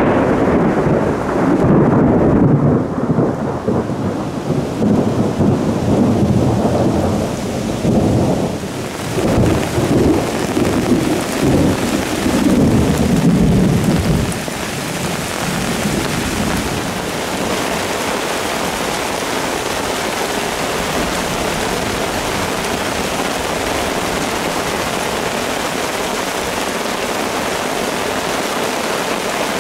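Rolling thunder over falling rain for about the first fourteen seconds, then only the steady hiss of rain.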